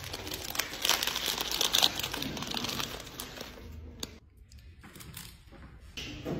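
Snack wrapper crinkling as it is handled and squeezed: dense crackling for about four seconds, then much quieter.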